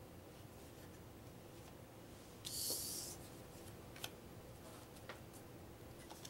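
Cardboard game cards handled on a wooden table: one short scrape of a card sliding across the deck about two and a half seconds in, then a couple of light taps.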